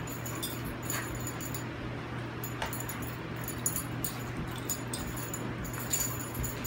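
Two dogs play-wrestling: scuffling on a rug with scattered short clinks of collar tags and some dog vocalising, over a steady low hum.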